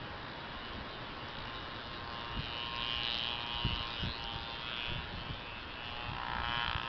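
Steady buzzing noise throughout, with a few soft low thuds from the hooves of a horse approaching over grass, growing near the end.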